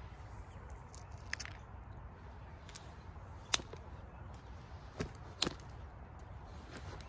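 Creek flint being knapped into a knife blade: about six sharp, separate clicks as the knapping tool strikes the stone's edge and flakes come off, the loudest about three and a half and five and a half seconds in.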